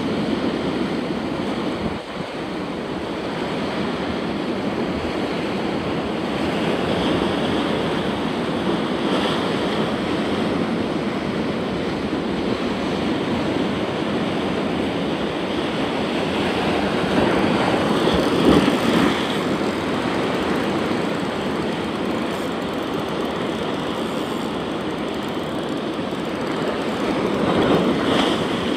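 Rough surf breaking over rocks: a continuous rush of sea water, with a wave crashing louder about two-thirds of the way through and again near the end.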